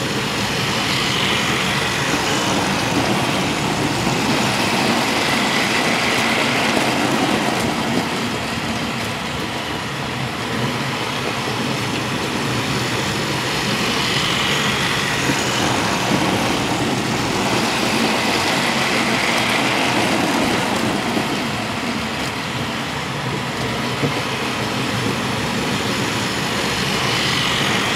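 Battery-powered toy train's small motor whirring as it runs around a plastic track, its wheels rattling on the rails. It is steady, and grows louder every several seconds as the train comes round close.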